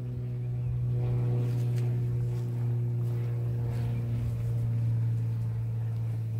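A small motor running at a steady pitch, a low even drone that does not change.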